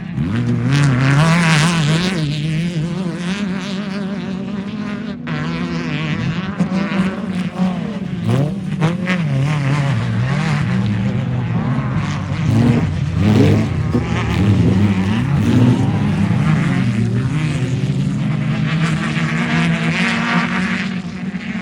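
Off-road race vehicle engines running hard, pitch rising and falling repeatedly as the throttle opens and closes.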